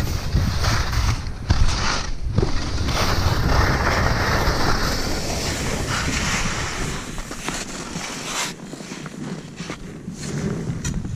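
Wind buffeting the action camera's microphone during a downhill ski run, with the hiss of skis sliding and scraping on packed snow. The wind rumble eases about eight seconds in and picks up again near the end.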